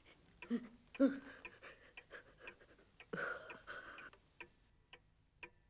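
An old woman whimpering and sobbing, with two short falling cries early and a long gasping breath a few seconds in, over a clock ticking about twice a second.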